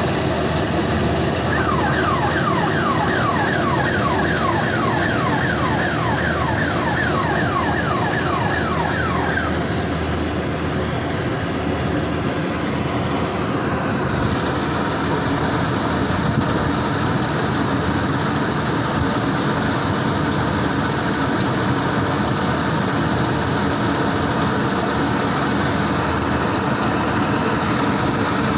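N S Agro mini combine harvester running steadily. For about eight seconds near the start, a warning tone repeats on top of it, falling in pitch about three times a second.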